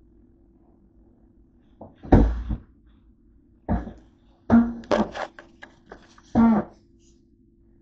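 Handling noise from a camera sitting on a table as it is bumped and moved: four short, loud knocks and rubbing sounds, the third a cluster of sharp clicks.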